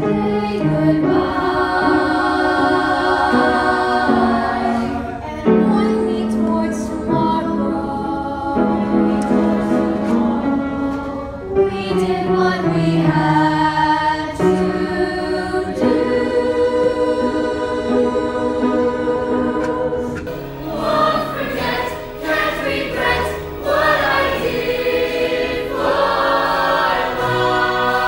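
A group of voices singing together in held chords that shift from note to note.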